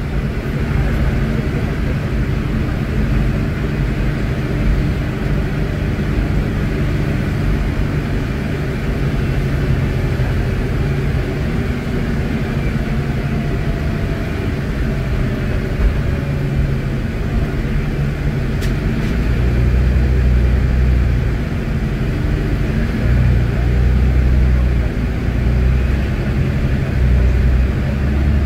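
Onboard a Volvo B8RLEA articulated bus under way: its rear-mounted Volvo D8K diesel engine, driving through a Voith DIWA.6 automatic gearbox, running with a steady low rumble that grows louder about two-thirds of the way in.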